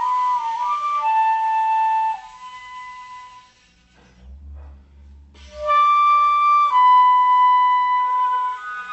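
Slow instrumental music: a woodwind melody of long held notes. It breaks off for about two seconds in the middle, then resumes.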